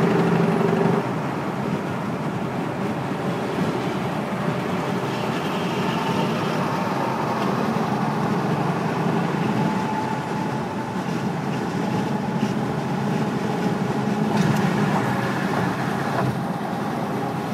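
Peterbilt semi truck cruising on the highway, heard inside the cab: a steady mix of diesel engine drone and road noise.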